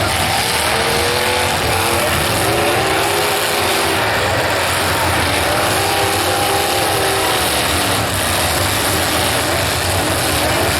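Demolition derby cars' engines running and revving, their pitch wavering up and down over a loud, steady wash of noise.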